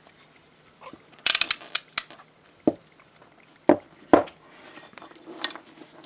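Metal clicks and clinks from an aluminium rigid handcuff and its key being handled. A quick run of clicks comes about a second in, then single knocks and clinks spaced out through the rest.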